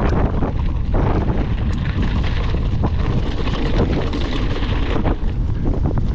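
Loud wind buffeting the microphone of a mountain bike's action camera while riding, with irregular knocks and rattles from the bike on rough ground.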